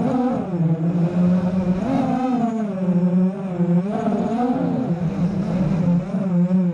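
Brushless motors and 5x4.5 propellers of a 5-inch FPV racing quadcopter (Cobra 2206 2100KV motors), heard from its onboard GoPro: a steady buzzing whine whose pitch swoops up and down several times as the throttle is punched and eased through turns.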